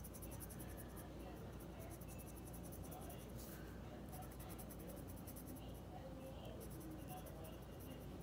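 Pencil scratching on paper in quick, short back-and-forth strokes, shading in small dark spots, with a brief pause a little before halfway.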